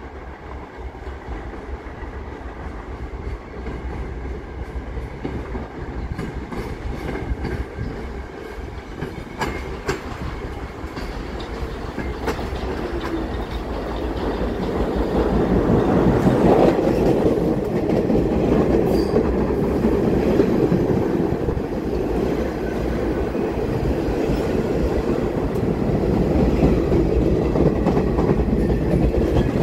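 New York City Subway R46 cars rolling into the station, wheels clacking over rail joints with a little wheel squeal. The rumble grows louder through the first half and stays loud as the cars pass close by.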